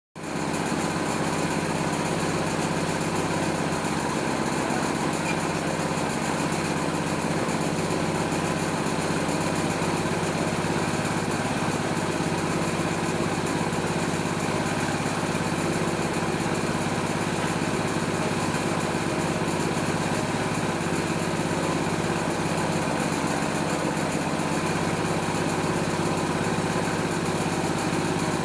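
Small Chinese Robin-type petrol engine running steadily at one constant speed, driving a homemade oil palm fruit thresher.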